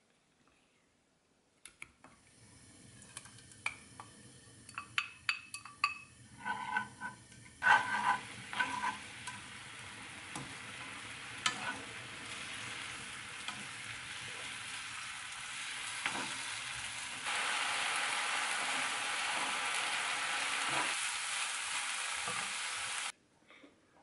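Spicy red sauce sizzling in a frying pan as fish cake strips are stir-fried in it with a wooden spoon, the spoon clicking and scraping against the pan. The sizzle grows suddenly louder about a third of the way in, rises again later, then cuts off suddenly near the end.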